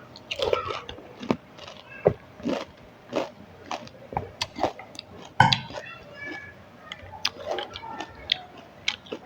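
Crisp fried fuchka (pani puri) shells being bitten and chewed: a run of sharp, irregular crunches and crackles with wet chewing between them.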